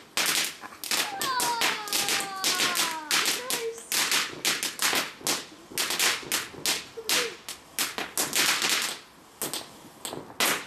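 Ground firework fountain firing: a rapid run of sharp pops and crackles, several a second, with whistles that fall in pitch about a second in. The pops thin out near the end, with one last crack.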